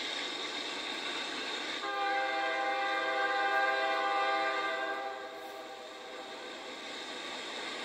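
Air horn of a CSX GE Dash-9 freight locomotive blowing one long chord for about three seconds, starting about two seconds in, over the steady rumble of the approaching freight train. Heard as played back through a computer's small speaker.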